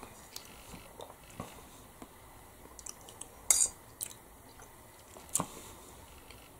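A person chewing a mouthful of chicken curry and rice, with scattered light clicks, the loudest about three and a half seconds in.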